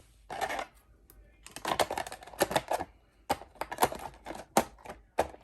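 Irregular sharp plastic clicks and light knocks from a small RC buggy being handled, with a short scrape about half a second in.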